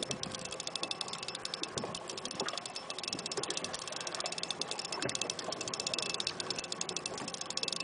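Spinning reel clicking rapidly and a little unevenly while a hooked king mackerel is played on a heavily bent rod.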